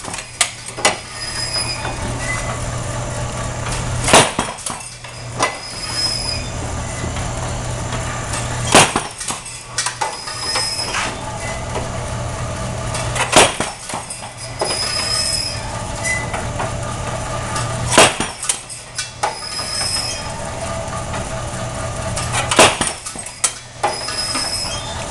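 Impact fatigue drop test rig cycling: a steady motor and belt-drive hum, with a sharp impact as the weight drops five times, about every four and a half seconds, each followed by a brief clatter.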